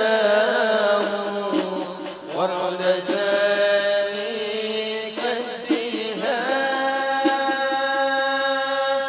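Male voices singing an Islamic devotional syair to hand-held frame drums (rebana). The melody slides up into two long held notes, about two seconds in and again about six seconds in, with light drum strokes underneath.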